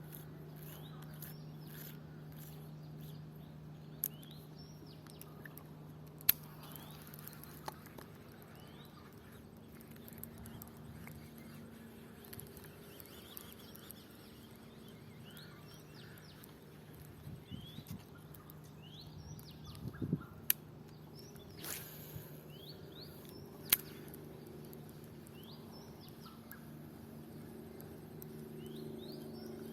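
Small birds chirping, with many short rising calls over a steady low hum. There are a few sharp clicks, the loudest about a third of the way in and again near two-thirds.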